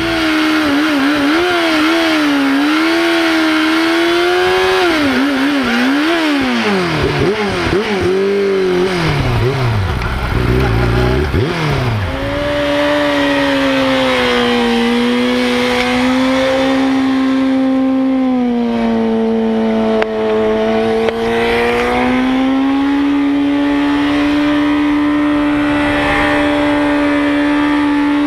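Yamaha YZF-R6 inline-four engine revving hard under load as it spins the rear tyre in a burnout. The revs rise and fall in quick blips for the first dozen seconds, then are held high and steady, sagging once about two-thirds of the way through.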